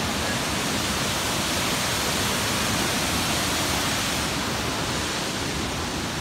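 Steady rush of white water over rocks in the Tallulah River below: an even, unbroken hiss.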